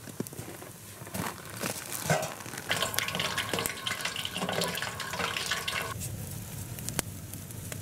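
Bear fat frying in a pot over a campfire, with the fire crackling. About six seconds in the sound changes suddenly to mostly campfire crackle.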